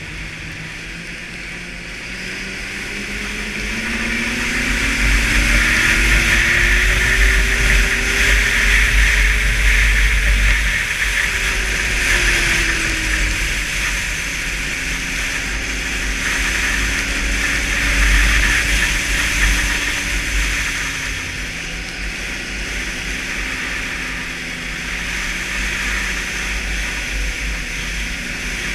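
Snowmobile engine running at speed. Its pitch climbs over the first several seconds as it accelerates, drops back about twelve seconds in, then holds nearly steady, all under a constant loud rushing noise.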